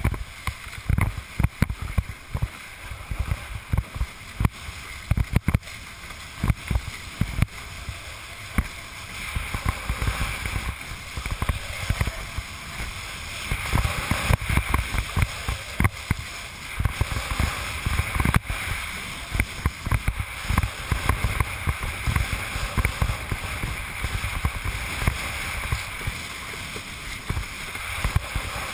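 Wind buffeting the camera's microphone in irregular low gusts, over a steady rush of water along the hull of a slalom windsurf board sailing fast.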